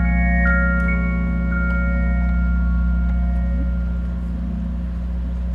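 Rhodes electric piano holding a sustained chord, with a few high notes added in the first second that ring and fade while the low notes keep sounding: the song's closing chord dying away.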